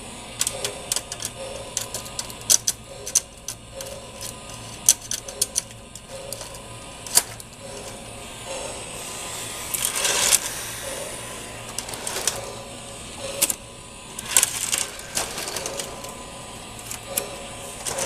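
Lionel LionChief Bluetooth model train running on its track: rapid, irregular clicking and clacking of wheels and cars over the rails, with a faint steady whine underneath and a couple of louder bursts of clatter.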